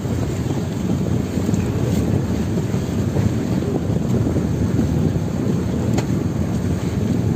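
Steady low rumble of wind buffeting the microphone on an outrigger fishing boat at sea, with a couple of faint clicks as a net is hauled in.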